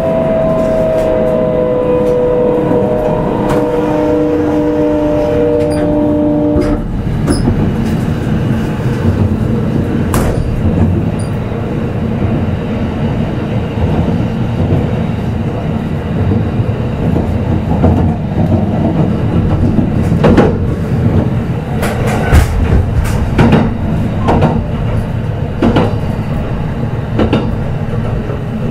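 Kintetsu 22000-series electric train heard inside motor car Mo 22117. For the first seven seconds the traction motor whine falls steadily in pitch as the train slows, then stops abruptly. After that, wheel and track rumble continues with irregular clacks over rail joints.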